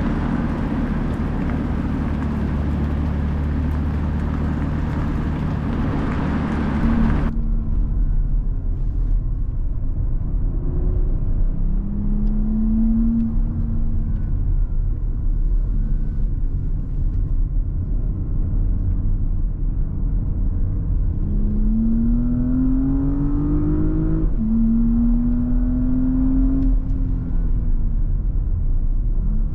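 Loud steady rushing of wind and road noise cuts off suddenly about seven seconds in. Then the Porsche Cayenne Coupe's 3.0-litre V6 is heard accelerating: its pitch rises briefly, and near the end it climbs steadily, drops at a gear change and climbs again.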